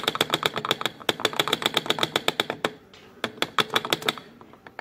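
Rapid, evenly spaced mechanical clicking, about nine clicks a second, which stops briefly near three seconds in and then runs for about another second.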